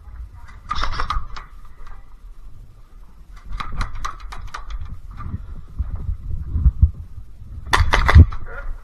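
Airsoft guns firing in three short bursts of rapid sharp snaps: about a second in, around the middle, and a louder one near the end. Dull thumps of movement run underneath.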